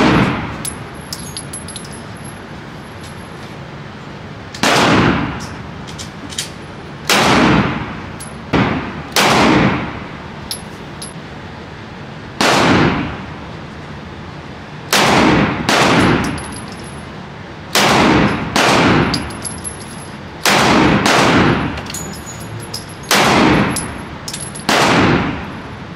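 Gunshots at a shooting range, about fourteen single shots fired at irregular intervals of one to three seconds, each with a short echo, and faint metallic clicks and clinks between shots.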